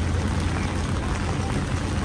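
Steady rain falling, an even hiss, over a low constant hum of the city.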